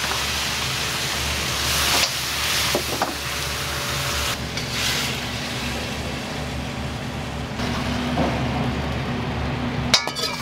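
Wok cooking: food sizzling in a hot wok over a gas burner, the hiss swelling and easing as the wok is worked, over a steady low hum from the kitchen fan. A metal ladle clinks about three seconds in and again near the end.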